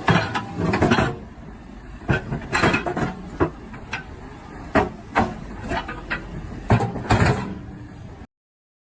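A series of irregular sharp knocks and clatters, like hard objects or tools striking, then the sound cuts off suddenly near the end.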